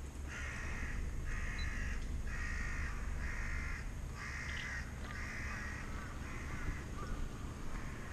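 A crow cawing: a series of about seven drawn-out, harsh caws, roughly one a second, over a steady low rumble.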